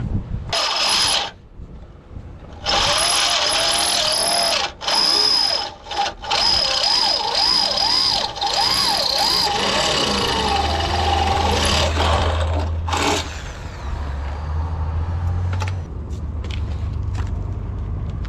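Electric power tool run in repeated bursts on metal, starting and stopping several times, its motor pitch wavering as it comes under load. A low hum joins about ten seconds in.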